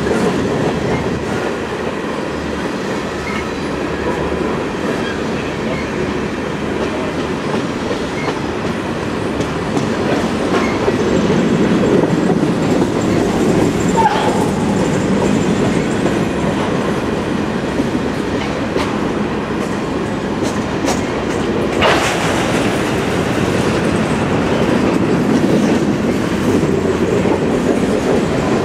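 Covered grain hopper cars of a freight train rolling past: a steady rumble of steel wheels on rail with clacking over the joints. One sharp bang comes about three-quarters of the way through.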